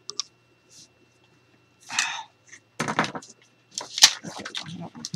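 Tyvek envelope material rustling and crinkling as it is handled on a cutting mat, in several short bursts, mixed with sharp clicks and knocks as a craft knife is set down on the mat.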